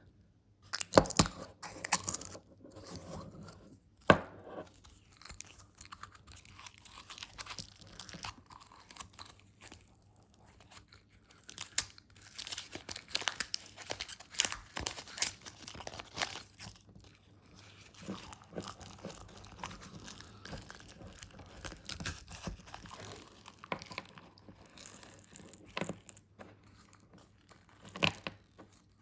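Paper and cardboard casing of a shotgun-shell firework being torn apart by hand: irregular tearing, crunching and crinkling, with a couple of sharp cracks in the first few seconds.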